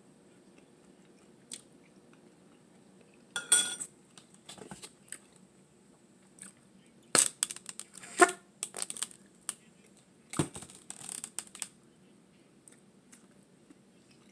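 Eating and food-handling sounds at a grill plate: scattered clicks, clatter and wet crunches, with chewing. About eight seconds in, a short sputtering squirt from a squeeze bottle of sauce.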